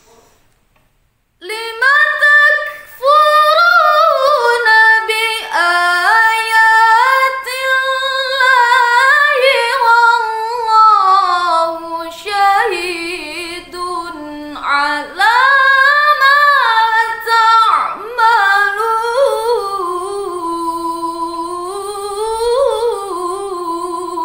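A woman reciting the Qur'an unaccompanied in the melodic tilawah style, drawing out long ornamented melismas with sliding, wavering pitch. The voice begins about a second and a half in and ends on a long held, quavering note.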